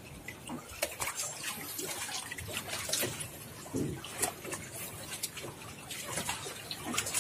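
Water splashing and trickling in many small, irregular splashes as a mass of caught fish shift about in a mesh net at the water's surface.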